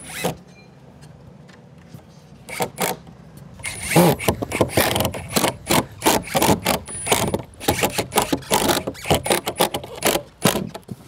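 A quick, irregular run of knocks and clicks, starting about two and a half seconds in.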